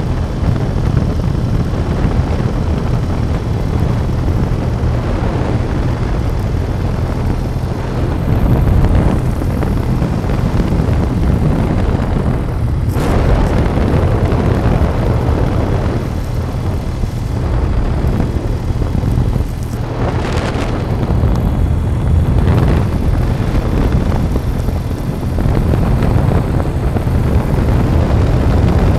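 Wind rushing over the microphone with the steady low drone of the vehicle carrying it along a paved road. There are brief louder gusts about halfway through and again a little later.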